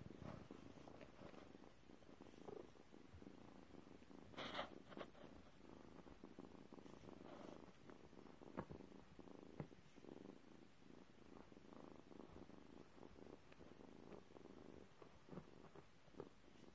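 Cat purring steadily, a soft continuous rumble, with a brief scratchy noise about four and a half seconds in and two faint clicks around the middle.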